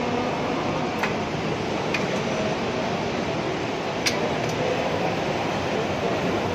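Motorized flexible roller conveyor running steadily as a cardboard box rolls along its curved, extendable section, under the background din of an exhibition hall. A few light clicks come through, the sharpest about four seconds in.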